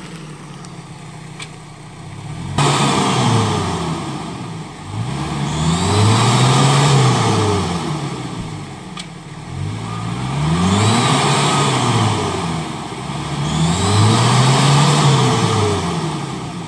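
Toyota Land Cruiser 70 stuck in deep mud, its engine revving hard in about four long surges that rise and fall in pitch, the first starting suddenly about two and a half seconds in. The spinning mud tyres churn the muck, and the truck has bogged down.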